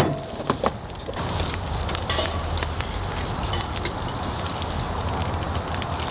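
A few sharp knocks in the first second, then a wood fire crackling and hissing steadily.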